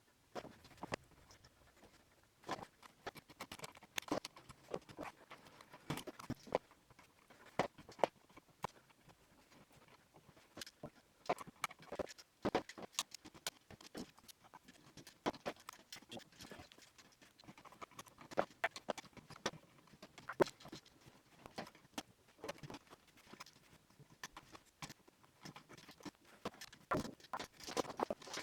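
Irregular clicks, taps and knocks of hand tools and electrical outlet hardware being handled during an outlet install, scattered at an uneven pace.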